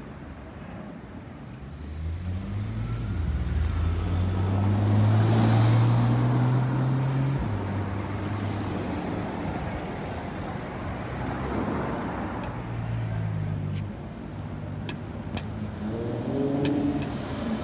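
Sports car engines on a city street: one car accelerates hard past, its pitch stepping up through the gear changes, then a steadier engine drone carries on. Near the end a higher, rising rev comes from the Ferrari 812 Superfast's V12 as it moves off.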